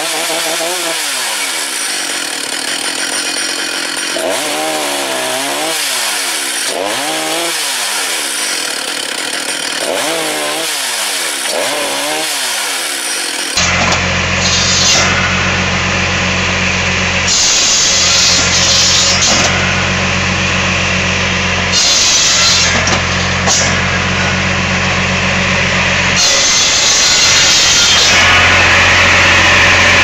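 A chainsaw in a sawhorse cutting frame revs up and down again and again as it cuts through logs. About 13 seconds in, the sound changes to a steady engine drone with firewood clattering on a conveyor.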